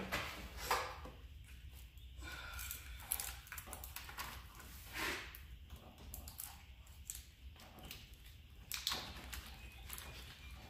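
Hands working a fuel rail loose in a car's engine bay: irregular clicks, knocks and rustling of plastic and metal parts, with a brief faint squeak about two seconds in.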